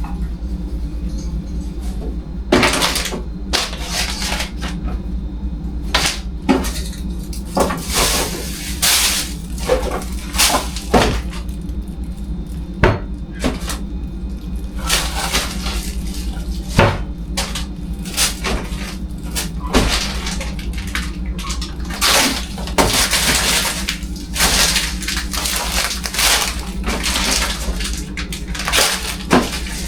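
Kitchen items being handled: repeated knocks and clatters of dishes, containers and cupboard or fridge parts, with longer swishing or scrubbing noises in between, over a steady low hum.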